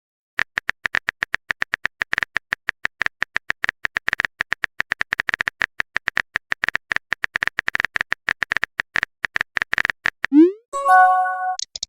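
Phone keyboard typing sound effect: rapid, irregular taps for about ten seconds as a chat message is typed. Near the end comes a short rising swoosh, the message-sent sound, then a brief chime.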